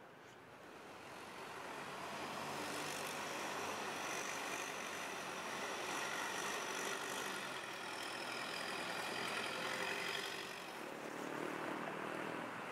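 Long-tail boat's engine running as the boat passes on the canal. It swells over the first couple of seconds, holds steady with a slight sag in pitch, dips near the end and picks up again.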